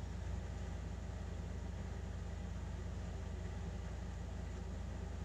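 A steady low hum with a faint even hiss over it, unchanging throughout.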